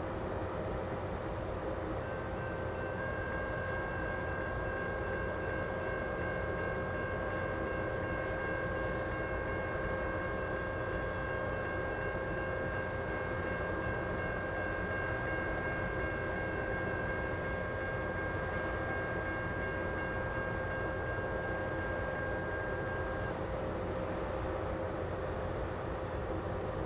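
General Signal Type 1 mechanical crossing bell ringing continuously as the crossing activates, starting a couple of seconds in and stopping a few seconds before the end, once the gates are down. A steady low hum and rumble run underneath.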